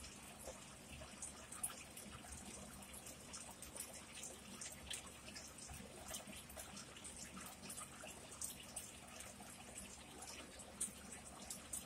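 Faint, wet chewing and small mouth clicks, close to the microphone, as a person chews a mouthful of pizza.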